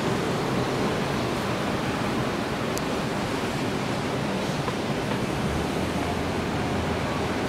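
Steady, even roar of a Boeing 777-222's jet engines heard from afar as the airliner rolls out on the runway after landing.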